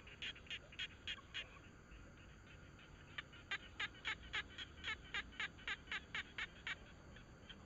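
An animal calling in fast, evenly spaced short high notes, about three or four a second: a short run at the start, then after a pause of about two seconds a longer run of a dozen or so notes.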